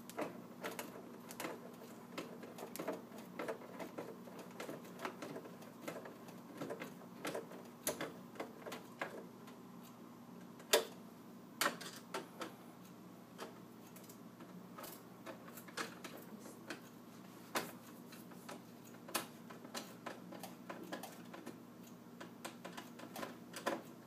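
Screwdriver work on the plastic handle and door frame of an over-the-range microwave as a screw is driven in by hand: an irregular run of small clicks and ticks, with a few louder knocks.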